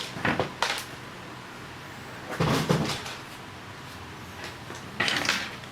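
Product box and packaging being handled: a couple of short knocks early on, then scraping and rustling, loudest about two and a half seconds in and again about five seconds in.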